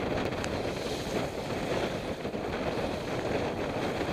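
Steady rush of water along the hull of a J/30 sailboat heeled and moving fast under sail, with wind buffeting the microphone.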